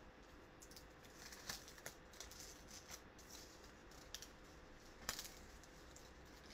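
Painter's tape being peeled slowly off card stock: faint crackling with a few soft ticks.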